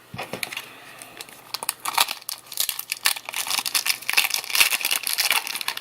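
Trading card pack wrapper crinkling and crackling in the hands as it is opened, sparse at first and getting denser about two seconds in.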